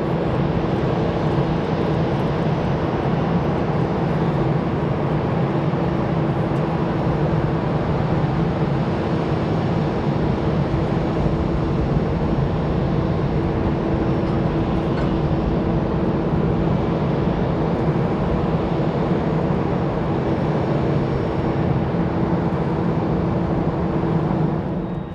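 Airbus A320 jet engines running at taxi power as the airliner rolls past close by: a loud, steady roar with a steady low hum through it.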